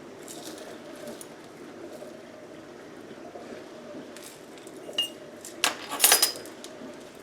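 A glass jar and kitchen utensils clinking a few times about five to six seconds in, one a sharp clink with a short ring, over a steady low hum.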